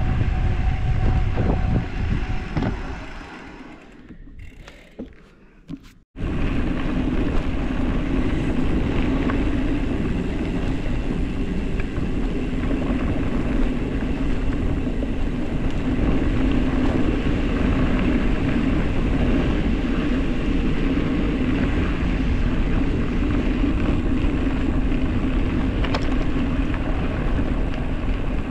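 Wind rush and tyre rumble on a fast descent over a dirt road, a steady noisy roar. About three seconds in it fades almost to nothing, then cuts back in abruptly at full level about six seconds in.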